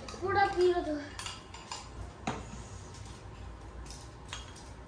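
Spoons and forks clicking and tapping against bowls and the table during a meal, as a handful of separate sharp clicks. A short voiced sound comes near the start.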